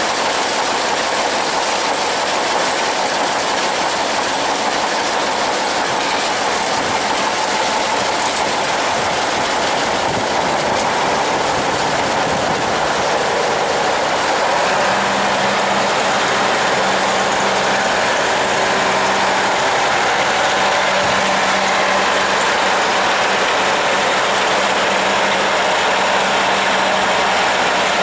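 T-150K wheeled tractors' diesel engines running at close range, a loud, steady mechanical drone. About halfway through, a steadier engine note comes up out of it.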